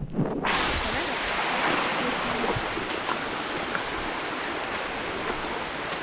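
Steady rush of a waterfall's falling water, cutting in abruptly just after the start, with faint voices under it.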